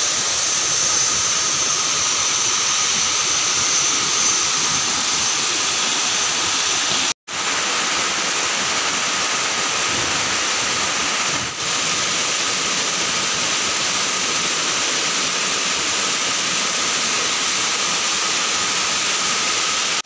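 Steady rushing of falling water. It cuts out briefly about seven seconds in.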